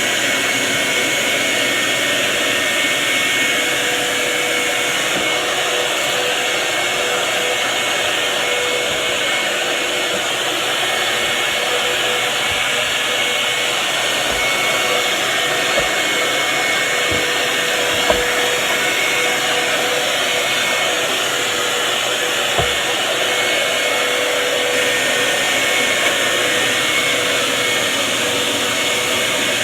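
A shop vac and a Dirt Devil upright vacuum running together, a loud, steady motor rush with a constant whine, and a few faint knocks along the way.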